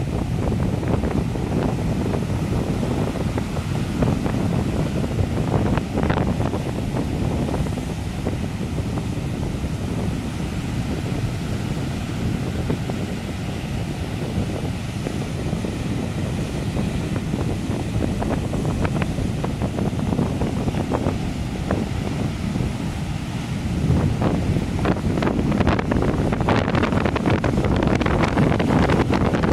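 Ocean surf breaking and washing up a sand beach, with wind buffeting the microphone as a heavy low rumble. The surf wash grows louder and more hissing for the last few seconds.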